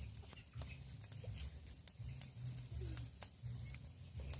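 Cricket chirping in a fast, even pulsing trill of about ten beats a second, with a low uneven rumble and a few faint clicks beneath it.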